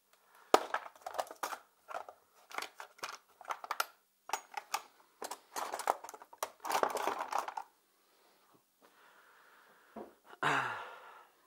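Metal hand tools clinking and rattling in a plastic toolbox as it is rummaged through: irregular clicks and clatters for about seven seconds, then a pause. A short, lower sound comes near the end.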